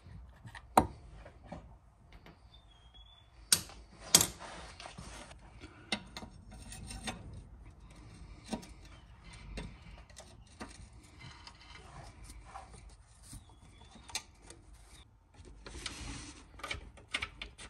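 Spanners and sockets working on a car's engine mount bolts: scattered sharp metallic clicks and clinks, with a couple of short rasping spells.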